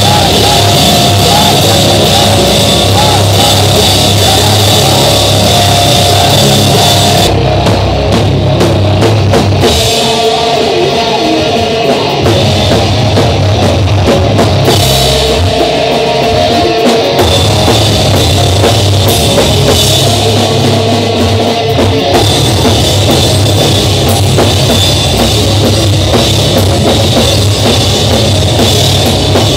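A live rock band playing loud in a small room: drum kit and cymbals driving under amplified instruments. The cymbals and high end drop back briefly about seven seconds in and again around fifteen seconds in.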